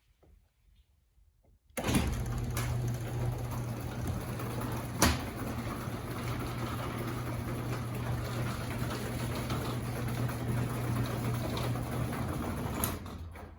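A car engine, the 1955 Pontiac Pathfinder's, running steadily with a low hum. It starts abruptly about two seconds in, has one sharp click partway through, and stops shortly before the end.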